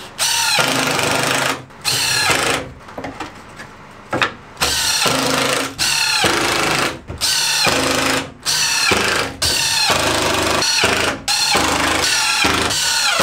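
Cordless Makita impact driver driving screws into OSB board, in about nine short runs of a second or two each, each starting with a rising whine, with short pauses between screws.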